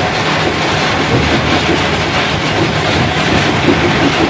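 Granite stone crusher running under load, breaking rock in an unbearably loud, unbroken mechanical din.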